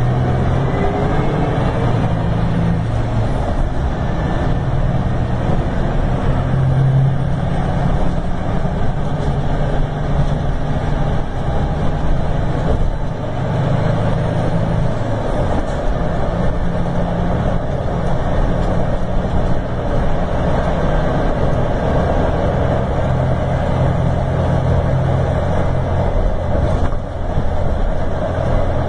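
Scania K410 coach's rear-mounted 13-litre inline-six diesel running, its pitch shifting up and down several times as engine speed changes.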